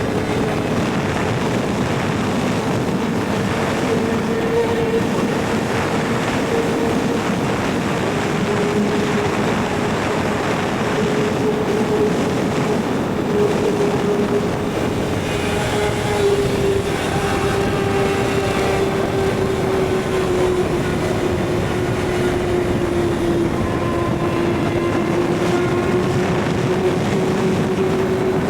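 Kawasaki ZX-6R's inline-four engine running at a steady high pitch under way, over a steady rush of noise; the engine note sags slowly lower through the second half.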